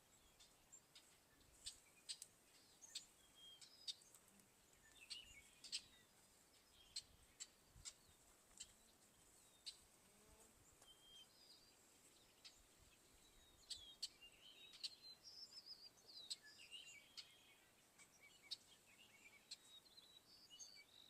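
Faint birds chirping and twittering: many short, high chirps scattered throughout over quiet outdoor background noise.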